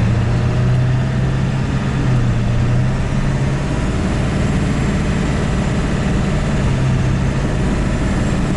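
Ford 7.3 Powerstroke turbo-diesel V8 running at light, roughly quarter throttle while cruising, heard from inside the cab as a loud, steady low drone.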